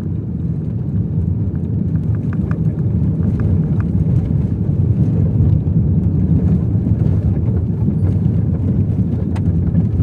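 Car driving along a forest track: a steady low rumble of engine and tyres, with a few faint knocks and rattles.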